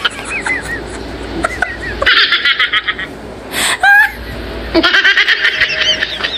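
Laughter in rapid, high-pitched cackling runs, with a short rising squeal about four seconds in as a piece of orange is tossed up to be caught in the mouth.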